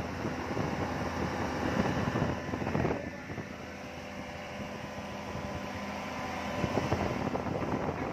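Speedboat outboard motor running at speed, with water rushing past the hull and wind on the microphone. The sound gets quieter about three seconds in.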